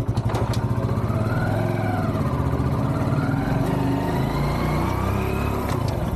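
Motorcycle engine running as the bike pulls away and rides off, its pitch rising and falling a couple of times as it revs.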